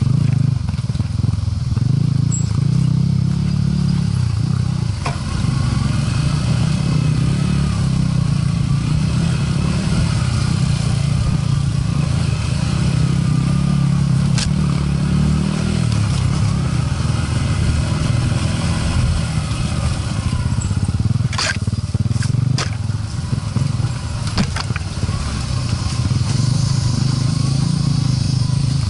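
Trail motorcycle engine running steadily at low revs, its note rising and falling with the throttle on rough dirt track. A few sharp knocks and clatters come through about halfway and again in the last third.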